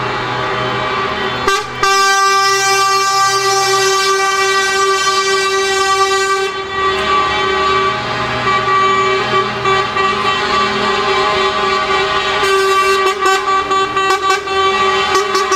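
Truck air horn sounding one long, steady blast that starts about two seconds in and holds on, over the running diesel engines of passing tractor units.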